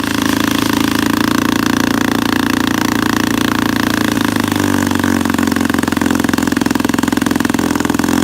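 1964 Wards Sea King 3 hp two-stroke outboard motor running on choke with its fuel bowl primed, steady at first and then uneven from about halfway. It keeps stalling unless the bowl is primed, which the owner puts down to a carburettor needle set too lean.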